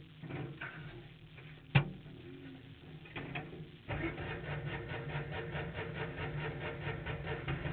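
Kart cross car's engine starting up about halfway through and running at idle with a rapid, even pulse. Before it comes a single sharp knock.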